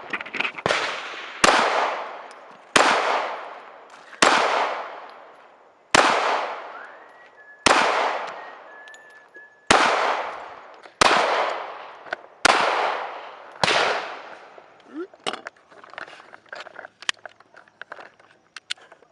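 About ten gunshots fired one after another, roughly one every second or so, each followed by a long echoing tail. In the last few seconds only fainter pops and clicks are heard.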